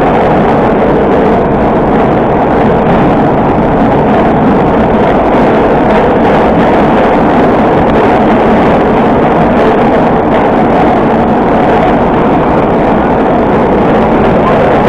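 Moscow Metro 81-765 "Moskva" train running steadily through a tunnel, heard from inside the car: a loud, even rumble of wheels and motors with no breaks.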